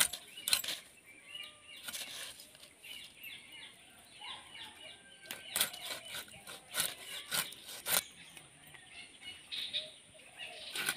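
A whole katla fish pushed through a boti blade, cut into pieces: a series of short, sharp cracks and crunches as the blade goes through flesh and bone, most of them in the second half. Small birds chirp faintly in the background.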